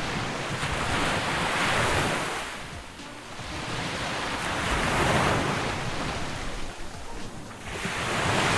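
Surf breaking and washing up on a sandy beach, swelling and falling away in slow surges every few seconds, with some wind on the microphone.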